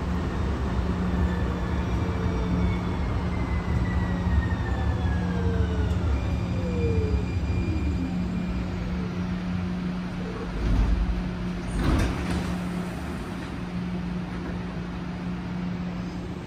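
Siemens S700 light rail car slowing into a station, heard from inside: the traction motor whine glides down in pitch as it brakes, over a steady low hum. A couple of thumps come about two-thirds of the way through as the car comes to a stop.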